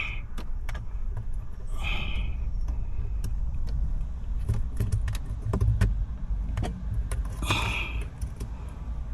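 Scattered sharp clicks and rattles, with two short scraping sounds about two seconds in and again near the end, as plastic headliner trim clips and a wire connector are worked loose by hand inside a car's cabin.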